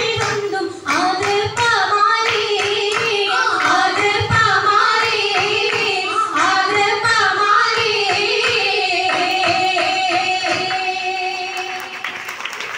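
Oppana song, a Mappila-style singing voice carrying a wavering melody, with rhythmic hand claps keeping time.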